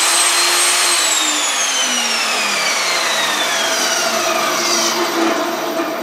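WEN 3720 10-inch jobsite table saw's 15-amp motor and blade running free at full speed. About a second in, the whine starts falling steadily in pitch as the saw spins down, fading over the last couple of seconds.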